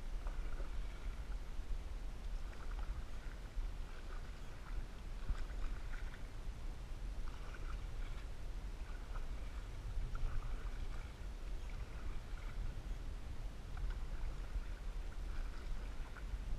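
Canoe under way: regular paddle strokes swishing and splashing in the water, about one every second or so, over a steady low rumble.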